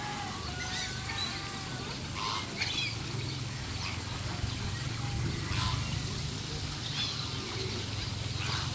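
Mixed ducks and geese calling at a pond: scattered short quacks and honks from several birds, over a steady low hum.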